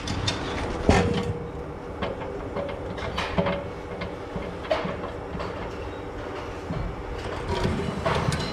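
A machine running steadily, with irregular metallic clanks and rattles over a low rumble.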